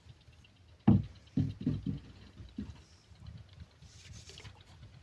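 Dull wooden knocks on a wooden boat: one loud knock about a second in, then a quick run of three or four more and a last weaker one. It is a long wooden pole bumping against the boat's planking as it is handled and set down.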